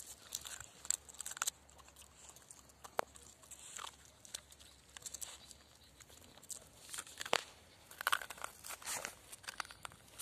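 Jack Russell terrier licking and biting chunks of ice and crusted snow: scattered, irregular crunches and crackles, with a few sharper crunches, the loudest about seven seconds in and a cluster soon after.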